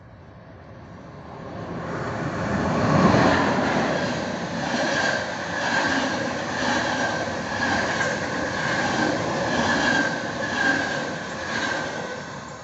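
PKP Intercity passenger train running through the station at speed: the noise swells to a peak about three seconds in as the head of the train passes, then the coaches roll by with a regular clickety-clack of wheels over the rail joints and a steady high ringing from the wheels on the rails.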